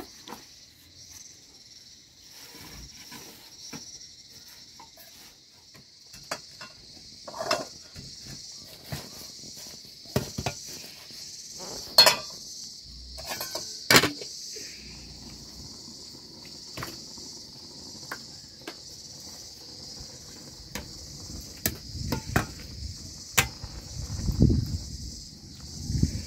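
Insects chirring steadily in the background, with sharp metallic clanks of an aluminium cooking pot's lid being handled, loudest twice about 12 and 14 seconds in. Near the end a wooden ladle knocks and scrapes, stirring the pot of nettle curry.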